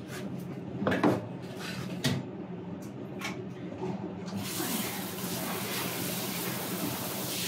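A handheld shower head spraying water into a bathtub, the hiss of the spray starting about four seconds in and running steadily. Before it, a few short knocks as the shower head is handled.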